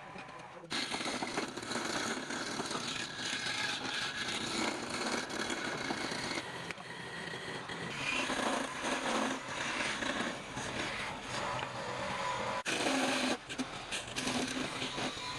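A small power tool running as it works wood, starting suddenly and then running steadily, with an abrupt break about three-quarters of the way through.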